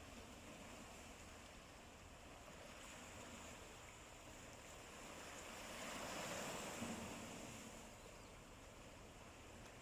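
Faint sea waves washing on the shore, with one wave swelling to a peak about six seconds in and then drawing back.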